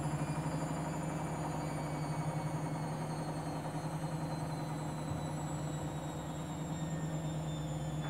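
Front-loading washing machine on a 1600 rpm spin, the drum turning fast. It gives a steady low hum with a fast, even throb and a high motor whine that drifts slightly lower.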